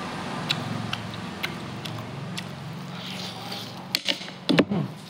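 Eating noises: scattered clicks and smacks from the mouth over a steady low hum, with a few louder sharp sounds about four seconds in.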